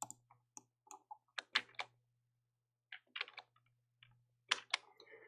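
Computer keyboard keys and mouse buttons clicking in scattered single taps, including a spacebar press that starts animation playback in Blender, over a faint steady low hum.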